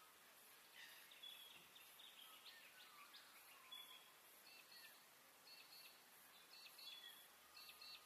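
Faint outdoor bird calls: scattered short chirps and quick runs of repeated high notes.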